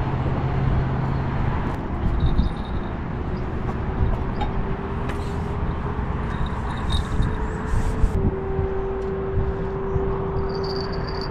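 Wind rumbling on the microphone over a steady distant engine hum. The hum's pitch creeps up slightly and then shifts about eight seconds in.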